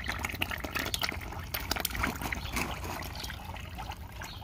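Milky, coolant-contaminated engine oil trickling in a thin stream into a drain pan, with a patter of small splashes. The coolant in the oil is the sign of a failed engine.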